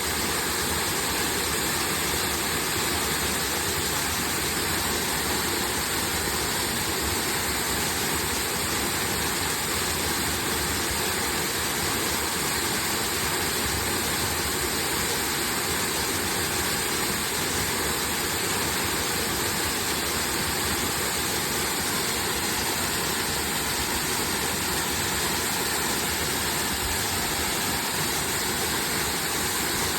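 Waterfall: water falling and splashing in a steady, even rush that does not change.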